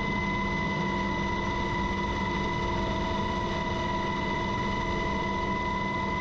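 Engine running steadily, a constant high whine over a low engine noise.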